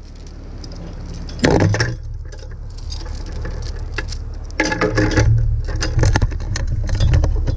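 Heavy steel chain rattling and clinking as it is gathered up in the hands and carried, the links clanking against each other in bursts: one loud one about a second and a half in, then a longer run from about four and a half seconds, over a steady low rumble.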